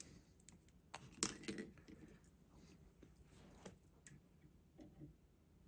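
Near silence with a few faint clicks and taps from a digital caliper being handled against a planer's metal height scale, bunched about a second in, then a few single ones.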